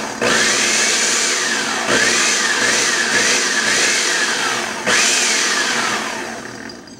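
Countertop blender motor run on its pulse button in two goes: a run of about five seconds, then a second short burst that winds down over about two seconds. Its whine rises and falls in pitch as the blades churn a load of spinach with no liquid added.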